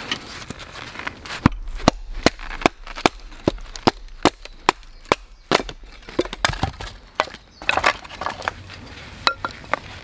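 A knife being batoned through firewood: a wooden baton strikes the blade's spine in a steady run of sharp knocks, about two to three a second. Near the end comes a short burst of cracking as the wood splits.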